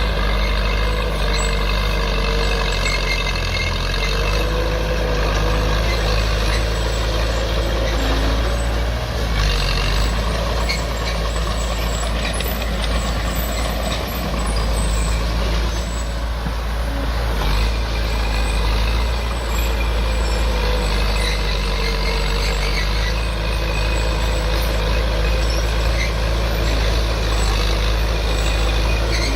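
Heavy earthmoving machinery running steadily, its engine drone continuous, with a wavering high squeal rising over it now and then.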